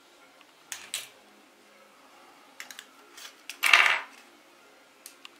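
Workbench handling sounds: two sharp knocks about a second in as the soldering iron is set aside, then small plastic clicks and a short, louder scraping rustle as a circuit board is fitted into a clear plastic tube housing.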